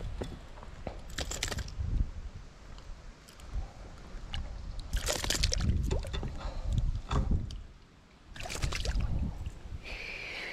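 A small largemouth bass splashing and thrashing at the water's surface while hanging on the line and being handled, in several short bursts, the longest about five seconds in, over low handling rumble.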